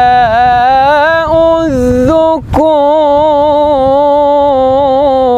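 Man's solo voice in melodic Quran recitation (tajweed), holding long, ornamented notes in maqam Kurd, with one brief break about two and a half seconds in.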